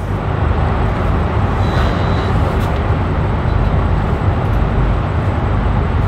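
Steady, loud background noise with a strong low rumble and a hiss above it, unbroken throughout, like machinery or fans running.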